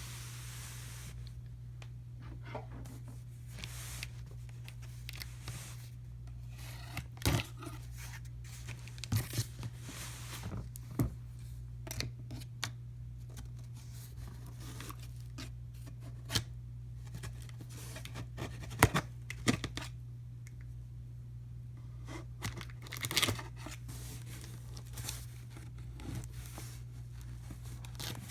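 Cardboard box being opened, packing tape being cut and torn, with scattered sharp clicks and rustles of packaging. A steady low hum runs underneath.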